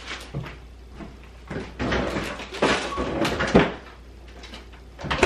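A refrigerator being loaded with groceries: rustling, knocks and clatter as containers are handled and set inside, with a sharp knock just before the end, like the door shutting.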